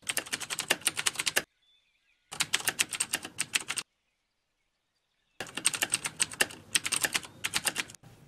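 Typing on a computer keyboard: three bursts of rapid keystrokes, separated by dead silence.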